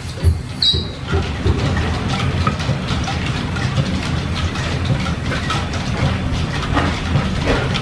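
Belt-driven line-shaft machinery running in a steam-powered machine shop: a steady low rumble with rhythmic clatter from belts, pulleys and gears. It comes up suddenly at the start with a brief falling squeal.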